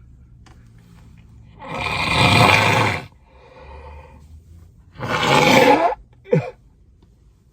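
A congested nose blown hard twice into a tissue, a long wet blow of over a second, then a shorter one a few seconds later, followed by a short falling vocal grunt.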